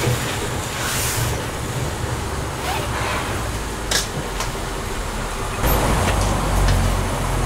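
Double Fairlie narrow-gauge steam locomotive moving slowly at low speed, a steady rumble with a short hiss of steam about a second in and a sharp clank about four seconds in. The rumble grows louder near the end as the engine draws close.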